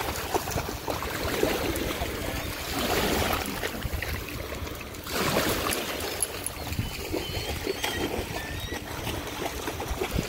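Water splashing and sloshing as dogs wade and run through shallow seawater, an uneven churning without a steady rhythm.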